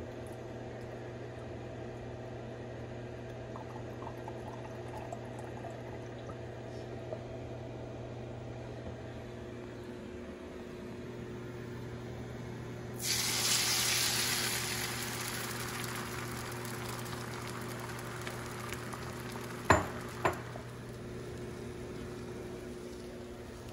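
Liquid egg whites poured from a glass measuring cup into a hot nonstick frying pan, sizzling loudly as they hit and then fading over several seconds. Two sharp knocks come a few seconds later, over a steady low hum.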